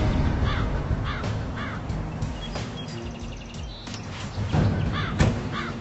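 Crows cawing, several caws near the start and several more near the end, over a low steady rumble.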